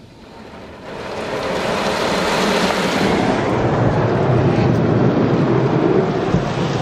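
Water jets of a touchless Laserwash automatic car wash spraying over the car, heard from inside the cabin: a rushing hiss that builds from about a second in, stays loud, and begins to fade near the end.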